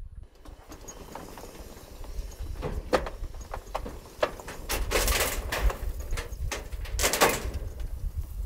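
Side-by-side UTV driving off a wooden-decked flatbed trailer: a steady low engine rumble with a series of clunks and rattles, the loudest about five and seven seconds in.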